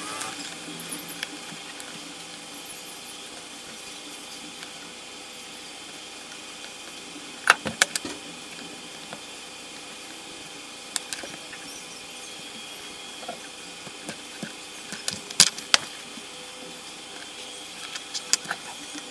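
Scattered sharp clicks and taps from handling wires, a soldering iron and small tools at a workbench, loudest in a few clusters around the middle and near the end, over a steady faint background hiss.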